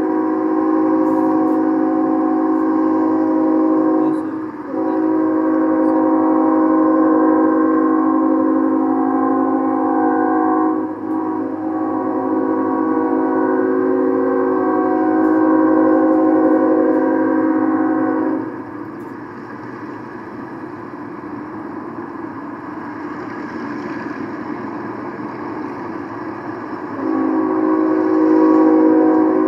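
Locomotive air horn sounding long blasts, a steady chord of several notes, with short breaks about four and eleven seconds in and a pause of about eight seconds before it sounds again near the end. A noisy rumble fills the pause. Heard through a webcam's live feed played back on a computer.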